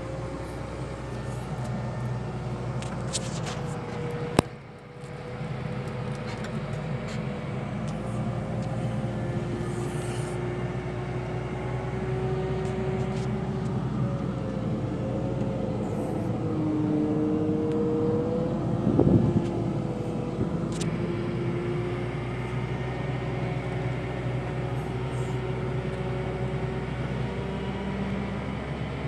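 Volvo L60F wheel loader's diesel engine running, heard from inside the cab while the machine drives with a load of timber on its forks, with a whine that wavers in pitch. A sharp click about four seconds in and a knock a little past the middle.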